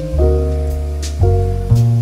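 Background instrumental music: held keyboard chords over a bass line, the chord changing a few times.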